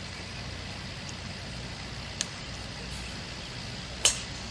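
Golf balls struck by clubs on a driving range: a faint crisp click about two seconds in, then a louder, sharper club-on-ball crack about four seconds in.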